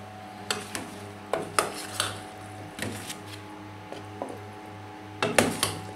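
A utensil knocking and scraping against a stainless steel pot as pasta is served out of it, in a string of sharp clinks with a louder cluster near the end. A low hum pulses steadily underneath.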